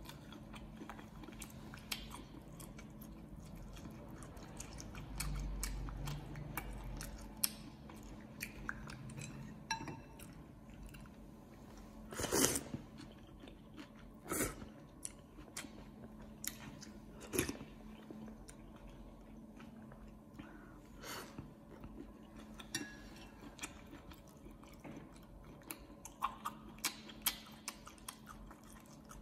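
A person chewing and biting a mouthful of noodle soup close to the microphone, with many small clicks of the metal spoon and chopsticks against the ceramic bowl and a few louder clacks in the middle. A faint steady hum runs underneath.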